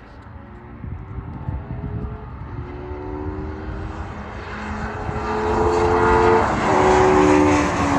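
Racing touring car engine accelerating hard, rising in pitch and dropping back at each upshift, getting louder as it approaches and is loudest near the end.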